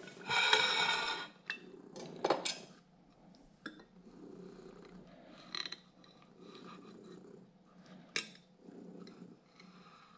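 A kitchen knife cutting through a raw perch fillet on a ceramic plate to cut out the line of bones: quiet scraping strokes, with a sharp click now and then as the blade meets the plate. A louder rasping noise comes about half a second in.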